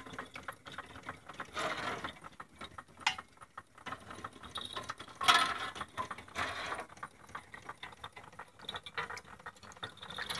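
Carette tinplate water elevator toy running: its bucket chain and gearing clatter in a fast, steady run of small metallic clicks. A few short splashes of water come through as the buckets scoop and tip their load, the loudest about five seconds in.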